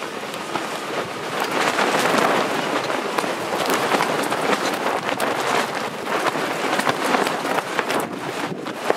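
Wind buffeting the microphone in uneven gusts, a rough rushing noise with crackles, swelling about a second and a half in.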